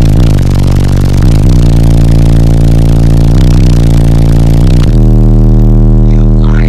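Very loud bass-heavy music heard from inside the cabin through ten 15-inch PSI subwoofers in a walled-off bandpass box. Deep sustained bass notes change pitch every second or two. Over them runs a dense rattling and buzzing from the vehicle's body and glass, which drops away about five seconds in while the bass keeps going.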